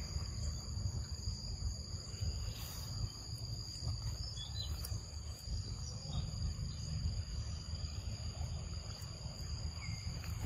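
Steady high-pitched insect drone over a low rumble, with a few faint short chirps.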